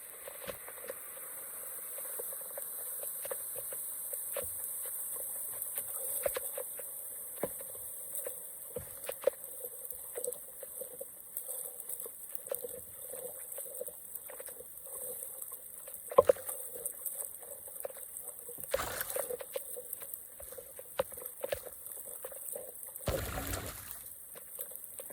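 Water trickling and dribbling through a drain or culvert, with many small scattered clicks and splashes. There are two short, louder rushes near the end.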